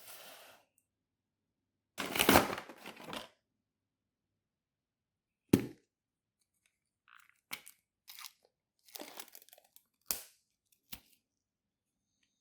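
Toy packaging being torn open by hand: one long rip about two seconds in, then a sharp click and a string of shorter clicks and crinkles of the wrapping.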